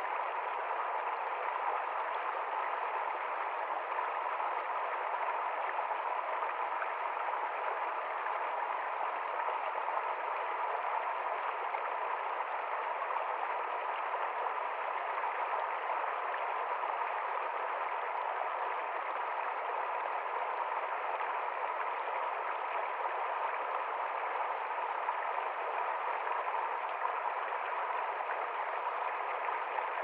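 Shallow rocky mountain stream rushing and splashing over stones: a steady, unbroken water rush.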